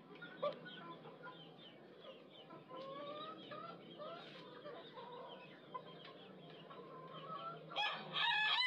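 Faint, scattered chicken clucks and short calls for most of the stretch. About eight seconds in, an ayam ketawa rooster starts its loud laughing crow: a fast run of short repeated cackling syllables.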